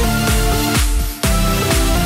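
Background electronic dance music with a heavy bass beat, dropping out briefly about a second in.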